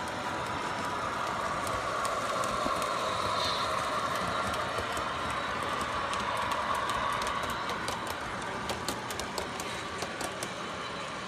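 Lionel O gauge model trains rolling on metal track with a steady rumble. Past the middle, a run of sharp, irregular wheel clicks comes as the freight cars pass over rail joints and switches.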